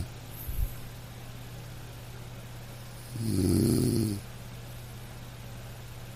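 Snoring: one snore about three seconds in, lasting about a second, over a steady low hum.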